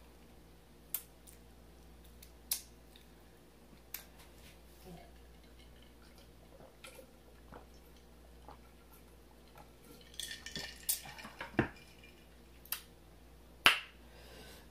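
Quiet table and eating sounds: scattered small clicks, a few swallows from a glass jar about ten seconds in, and a louder knock near the end as the glass is set down on the table.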